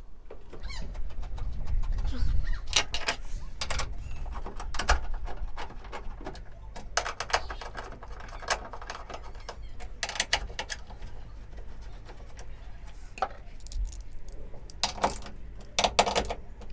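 Scattered metal clicks and clinks from hand work fitting a bracket to a van's side door, over a steady low rumble.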